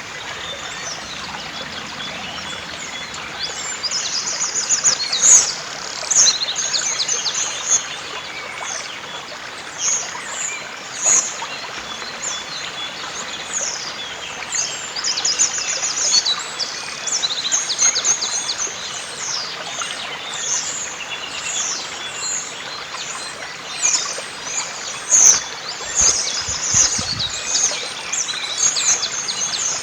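Several songbirds singing in short phrases, with a fast run of repeated notes a few seconds in and again about halfway, over a steady hiss of flowing river water.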